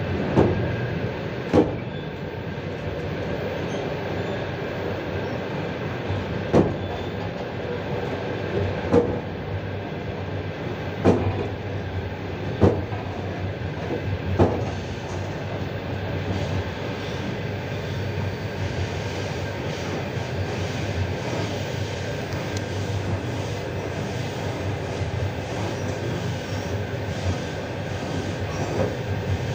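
Moving train heard from inside its carriage: a steady rumble of the wheels on the rails, with about seven sharp knocks at uneven gaps in the first half.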